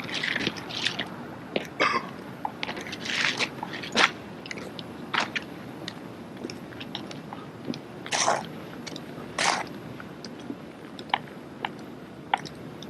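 Drill team handling rifles: irregular sharp clacks and slaps of hands and rifles, with a few brief swishing rushes and one louder strike about four seconds in.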